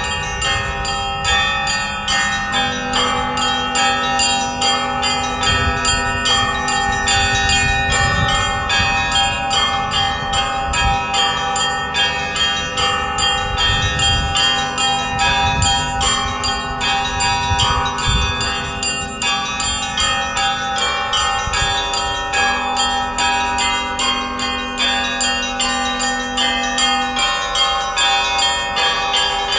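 Russian Orthodox church bells in festive ringing: several small bells struck in a rapid, continuous pattern over the lasting hum of larger bells, with a deeper bell's tone coming in and dropping out a few times.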